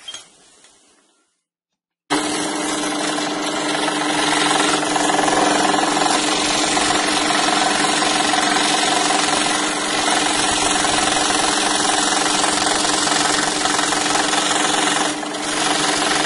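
Scroll saw running and cutting 10 mm birch plywood, a loud steady buzz that starts abruptly about two seconds in after a few faint handling sounds. It dips briefly near the end.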